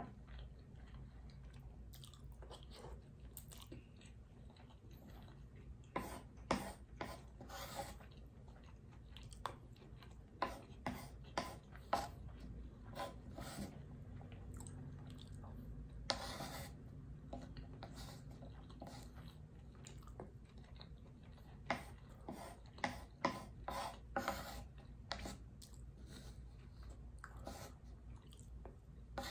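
Close-up chewing with crunches, mixed with wooden spoon and fork scraping and tapping crumbs across a wooden cutting board; irregular short clicks and scrapes throughout.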